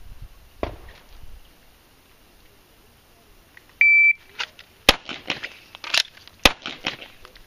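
A shot timer's start beep, then a 9mm Smith & Wesson M&P pistol fires once about a second later, with the clicks of a fast magazine reload, and fires a second shot about one and a half seconds after the first. The draw takes 1.09 seconds and the reload 1.56, which is slower than the shooter wants.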